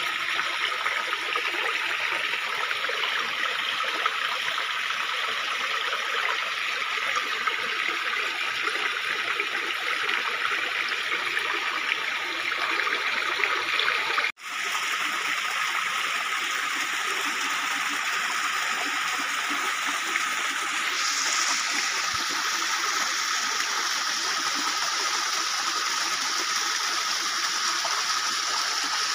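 Shallow stream water running steadily over and between rocks, with one brief dropout about halfway through.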